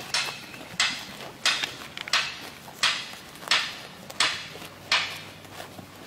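Sheep grazing close by, tearing off mouthfuls of grass in a steady rhythm: eight crisp rips, about one every two-thirds of a second.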